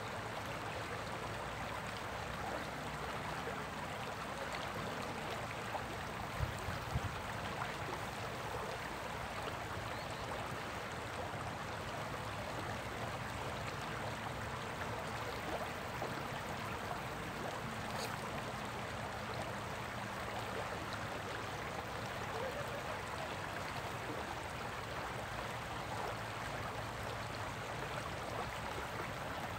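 Shallow stream running over rocks in a riffle: a steady rushing, babbling flow of water. Two brief low thumps about six and seven seconds in.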